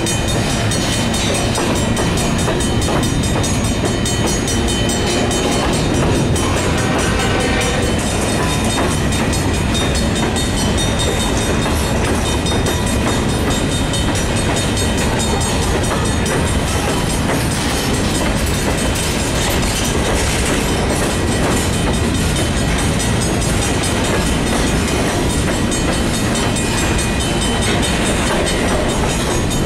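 Freight train of covered hopper cars rolling past close by: a steady, loud rumble of steel wheels on rail, with clickety-clack as the wheels cross rail joints.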